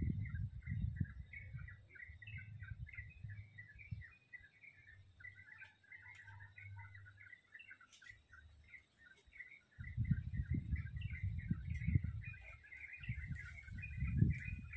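A dense chorus of small birds chirping and twittering without pause. A low, uneven rumble sounds under it in the first few seconds and again from about ten seconds in.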